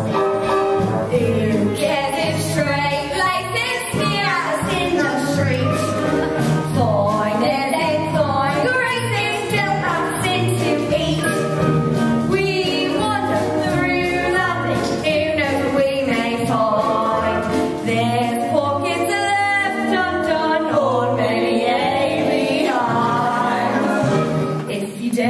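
Women singing a stage-musical song with vibrato over an orchestral accompaniment.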